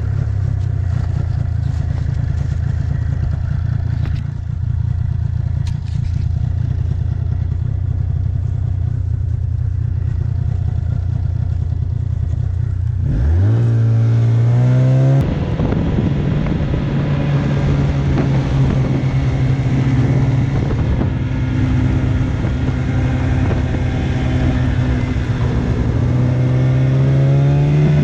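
A vehicle engine running steadily, then revving up in a rising sweep about halfway through as the vehicle accelerates, holding at the higher speed and climbing again near the end.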